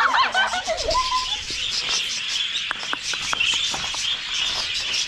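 A flock of budgerigars chattering and chirping steadily, with a few sharp higher chirps standing out in the middle.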